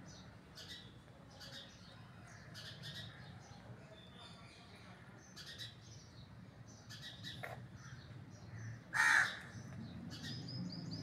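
Tabby cat crunching dry kibble: a run of short, crisp crunches every half second or so. About nine seconds in, one short, loud, harsh animal call stands out over the chewing.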